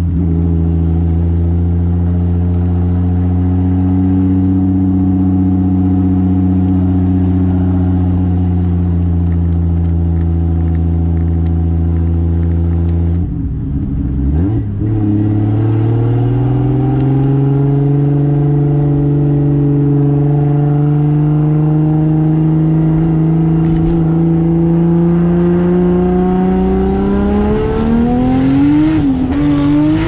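The Toyota Soarer's 2JZ single-turbo straight-six is heard from inside the car, running steadily at constant revs. About 13 seconds in there is a gear change on its R154 manual gearbox, after which the engine runs higher and the revs climb slowly. The pitch wavers briefly near the end.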